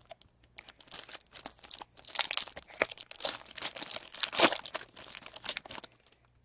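Foil trading-card pack wrapper crinkling and tearing in the hands, a dense run of irregular crackles as a pack is opened.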